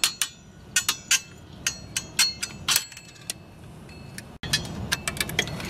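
Steel pliers and a pry tool clinking against the parking brake's return springs and shoes as the springs are worked off: a run of irregular sharp metallic clicks, some ringing briefly.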